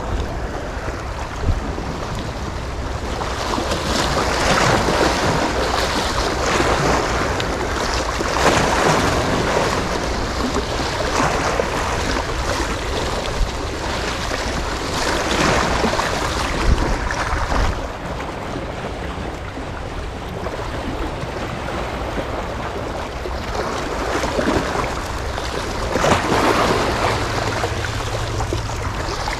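Sea waves washing with wind buffeting the microphone: a steady rush that swells louder several times.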